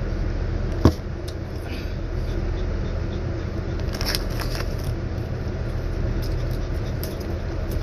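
A steady low mechanical hum, with a single sharp knock about a second in as a plastic iced-drink cup is set down, then light crackling and clicks around four seconds in.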